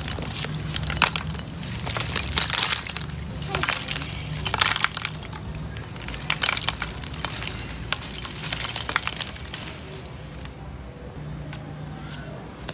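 Lumps of charcoal poured from a plastic bag, clattering and crackling against one another as they land in a brick hearth, in several bursts over about nine seconds.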